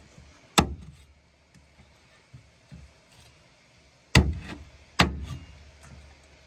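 Three heavy cleaver chops through meat onto a wooden cutting board resting on a pickup truck's metal tailgate. Each is a sharp knock with a short low ring: one about half a second in, then two close together about four and five seconds in.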